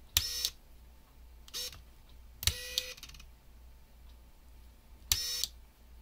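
Shimano XT Di2 FD-M8070 front derailleur motor shifting on the bench: three clicks each followed by a short electric whir, about a third to half a second long, with one briefer whir between the first two as the derailleur auto-trims on the outer chainring.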